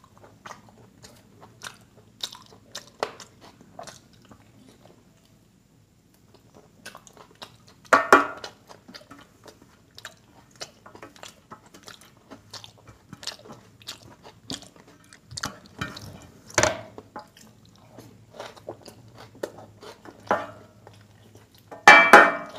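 Close-miked eating by mouth and hand: wet chewing, smacking and bites at mutton on the bone with dal and curry, made of many small clicks. Two louder, longer bursts come about 8 seconds in and near the end, and there is a quiet stretch of a few seconds before the first.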